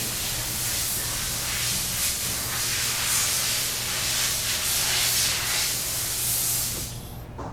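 A steady hiss that cuts off sharply about seven seconds in, over a low steady hum.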